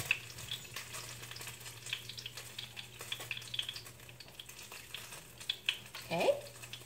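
Hot oil in a frying pan crackling and spitting with small irregular pops after the salmon has been fried, the popping coming from the oil and bits of fish skin left in it. A short voiced sound about six seconds in.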